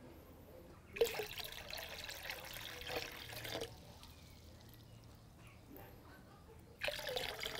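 Liquid poured in a stream from one plastic bucket into another, splashing for about three seconds from a second in. Another short splash comes near the end. It is a litre of nematode solution being diluted with clean water.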